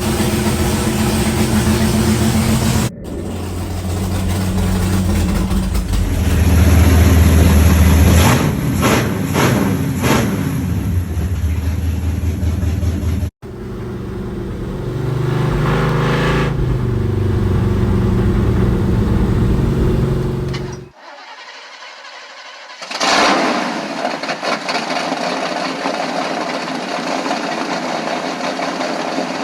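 Motor engines running and revving, in several clips joined by abrupt cuts.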